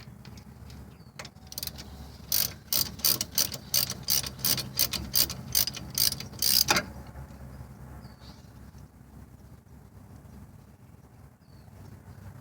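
Hand ratchet clicking as a hub bearing mounting bolt is backed out: a run of about fourteen sharp clicks, unevenly spaced at roughly three a second, starting a couple of seconds in and lasting about four seconds.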